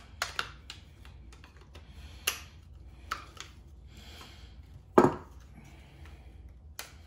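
Scattered sharp clicks and taps from hand work on an automotive wiring harness and its connectors, with one louder knock about five seconds in.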